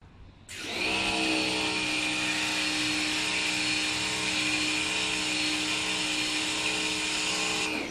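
Pressure washer spraying a jet of water onto an agricultural drone, a steady hiss with the electric pump's hum beneath it. It starts about half a second in and cuts off near the end as the trigger is let go.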